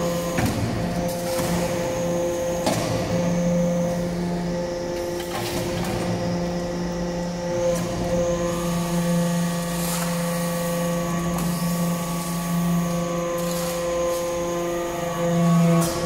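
Hydraulic metal-chip briquetting press running as it compacts copper flakes and granules: a steady hum from its hydraulic power unit, broken by occasional short metallic knocks and clanks.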